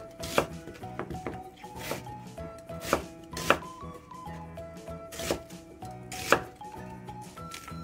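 Knife chopping on a cutting board: irregular strikes, the loudest about six seconds in, over background music with a melody and bass line.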